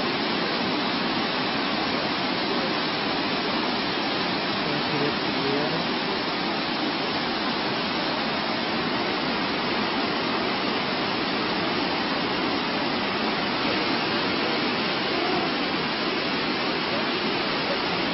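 A steady rushing noise at an even level, with no distinct events.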